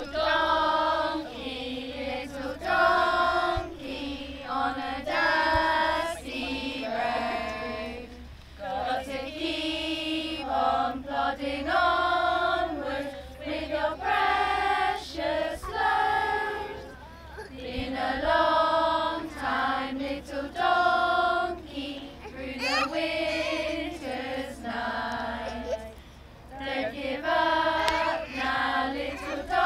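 Young children and women singing a song together in unison, in phrases of held notes with short breaths between.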